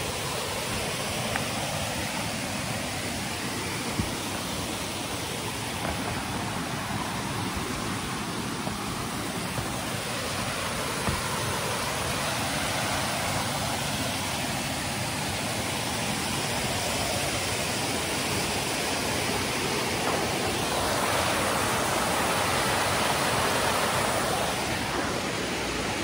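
Waterfall rushing steadily, a little louder near the end.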